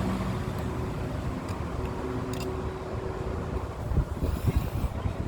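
Wind buffeting the microphone over a steady low outdoor rumble, with stronger gusts about four seconds in.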